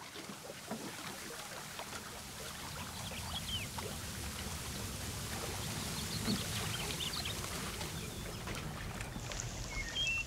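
Running water trickling and splashing over stream rocks, a steady rush, with a few faint high chirps in it.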